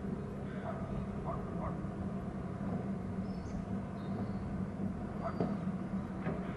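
Outdoor background with a steady low drone, over which a few faint, short, high bird chirps come and go, one about halfway through.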